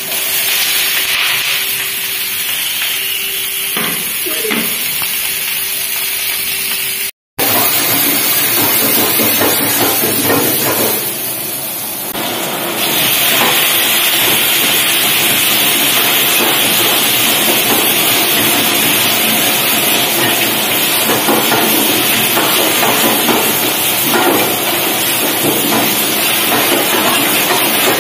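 Chopped vegetables sizzling loudly in hot oil in a steel pan over a high gas flame, stir-fried with a steel ladle that scrapes and knocks against the pan. The sound cuts out for an instant about a quarter of the way in.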